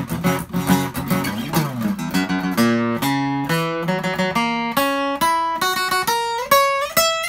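Steel-string acoustic guitar played: strummed chords with bent notes, then, about two seconds in, a run of single picked notes climbing step by step in pitch.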